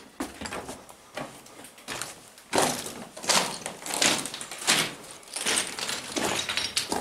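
Footsteps crunching on loose rock and gravel, an irregular step every half second to second, louder from about two and a half seconds in.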